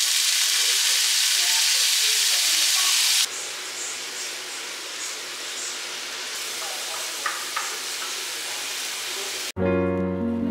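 Diced bacon sizzling loudly as it lands in a hot nonstick frying pan. About three seconds in, the sizzle drops to a quieter steady hiss with a couple of light clicks. Acoustic guitar music comes in near the end.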